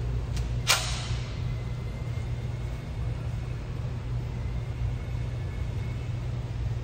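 Steady low rumble of a 2015 Toyota 4Runner's engine and tyres heard from inside the cabin while driving. A sharp click or knock comes just under a second in.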